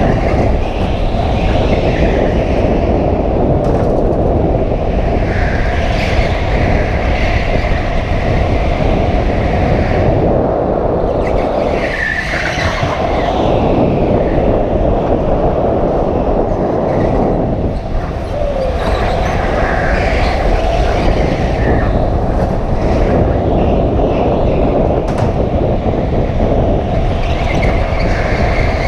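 Go-kart running at racing speed, with a steady loud rumble of motor and rushing air on the onboard microphone and tyres squealing and scrubbing through the corners every several seconds.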